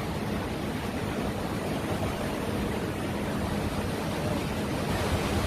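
Steady rushing noise of waves at the shoreline at high tide, with a faint low hum underneath.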